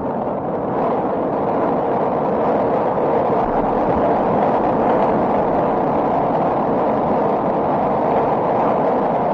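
Thunder sound effect: a long, continuous roll of thunder that builds over the first second and then holds steady, with no separate cracks.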